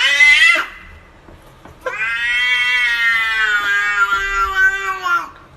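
Cat yowling: a rising call ends about half a second in, then after a short pause comes one long, drawn-out yowl of about three and a half seconds.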